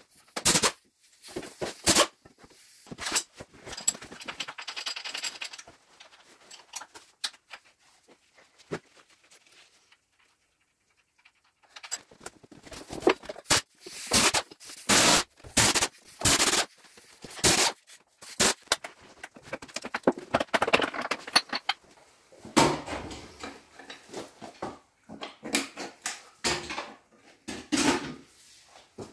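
A hose-fed pneumatic wrench rattles as it undoes bolts on the oil pump and oil gallery pipework, mixed with sharp metal clicks and knocks. After a short quiet stretch about ten seconds in, a run of loud metal clanks and knocks follows as the fittings and pipes are worked loose by hand.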